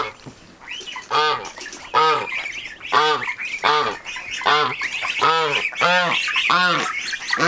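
Domestic white geese honking over and over, about one honk every three-quarters of a second from about a second in, with fainter high-pitched peeping and chatter underneath.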